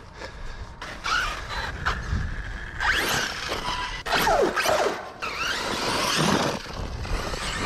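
Arrma Talion RC buggy's electric brushless motor revving in short bursts, its whine sweeping up and down in pitch, mixed with rough scraping noise.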